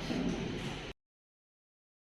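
Faint tail of a song fading out, then the sound cuts off to dead silence about a second in.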